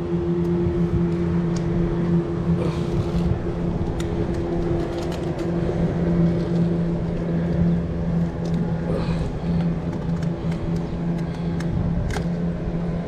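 An engine hums steadily at an even pitch, with a few light clicks over it.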